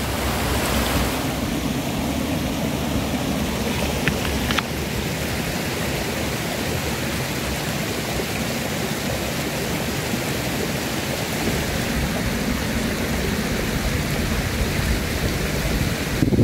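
Steady rushing water of the stream running through a rocky gorge, with a fluctuating low wind rumble on the microphone and a couple of faint clicks about four seconds in.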